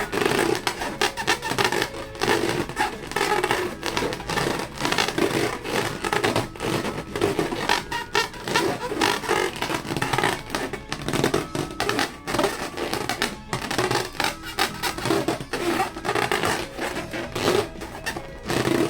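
Background music, dense and continuous.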